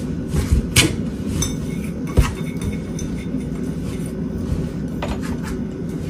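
A flour and mashed-avocado mixture being mixed by hand in a stainless steel bowl: soft rubbing and scraping with a few light clinks of the bowl, the sharpest about two seconds in.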